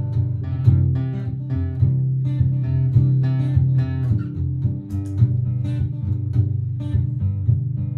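Martin GPCPA4 acoustic-electric guitar playing a run of plucked notes over a steady looped guitar backing.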